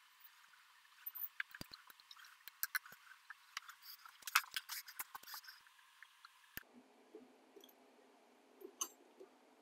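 Faint, irregular light clicks and taps of small metal parts and a screwdriver being handled on a DeWalt 735 thickness planer's cutterhead lock mechanism, most of them in the first two-thirds, with a few more near the end.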